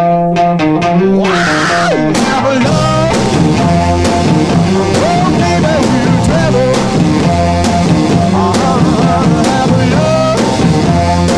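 Rock background music: a guitar riff gives way about a second in to the full band with electric guitar, bass and a steady drum beat.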